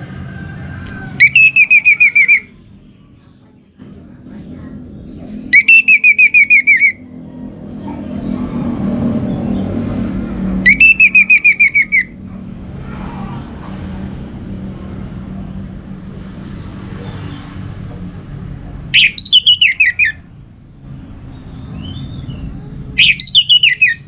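Orange-headed thrush singing in five loud bursts, each a fast trill of repeated notes lasting about a second; the last two start higher and fall in pitch. A low rumble runs underneath and swells around the middle.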